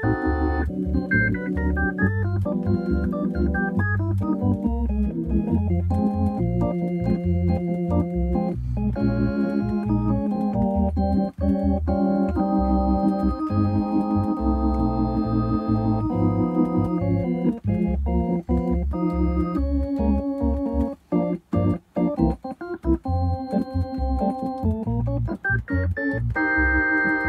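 Hammond B3-style organ sound from a Ferrofish B4000+ module, played from a Hohner MIDI accordion through a Roland Cube Street amplifier: held chords over a moving bass line, with a short choppy passage of clipped notes a little past two-thirds of the way through.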